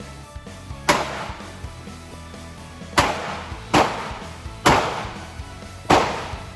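Five gunshots fired singly at uneven intervals, each a sharp crack with a short ringing tail. Background music plays underneath.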